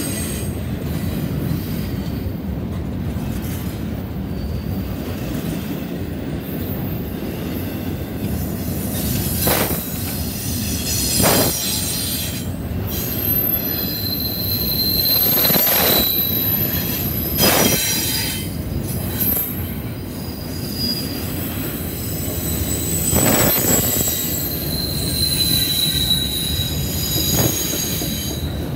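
CSX double-stack intermodal freight train rolling past at close range: a continuous rumble of wheels on rail, with high-pitched wheel squeals that come and go. Several sharp clanks ring out over the rumble through the middle of the passage.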